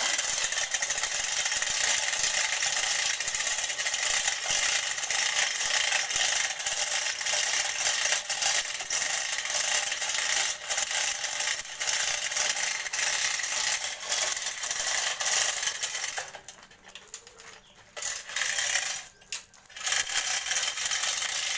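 Manual chain hoist being worked, its steel chain running through the hoist with a continuous clicking rattle. It stops about 16 seconds in, with one short burst of rattling a few seconds later.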